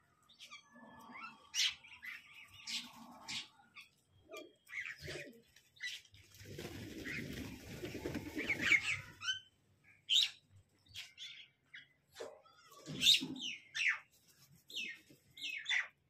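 Parrot chirps and squawks, short sharp calls scattered throughout, with about three seconds of rustling noise in the middle.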